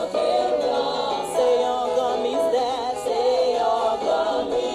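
Background music: a choir singing, several voices holding and gliding between sustained notes.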